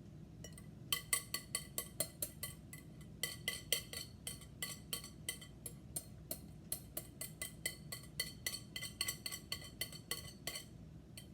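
A utensil knocking rapidly and repeatedly against a mixing bowl, about four to five ringing clinks a second, while brownie ingredients are tipped in and worked together, with a brief pause about three seconds in.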